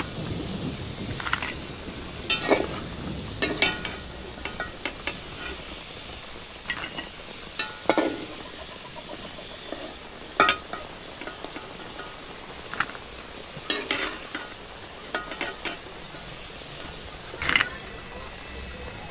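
Cassava pieces sizzling in hot oil in a steel wok, with a metal spatula scraping and knocking against the pan about a dozen times at irregular intervals as the pieces are stirred and lifted out.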